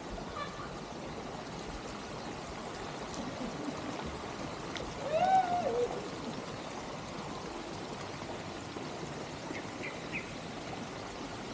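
Steady rush of running water. About five seconds in, a short pitched call rises and then falls, louder than the water.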